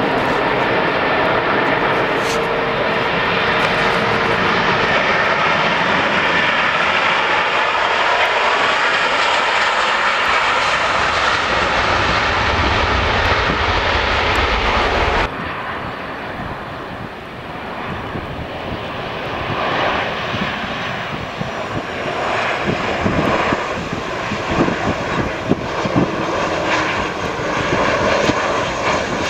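Airliner jet engines, loud and steady, with a low rumble swelling shortly before a sudden cut about halfway through. After the cut a second jet is heard, starting quieter and growing louder, with a rough, crackling rumble.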